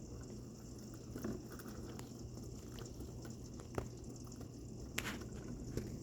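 Steady rain with scattered drips and taps of water, a few sharp single ticks among them.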